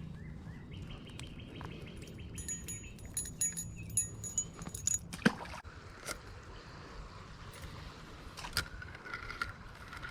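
Light metallic jingling and clinking for a couple of seconds, then a sharp knock about five seconds in and a fainter click a few seconds later.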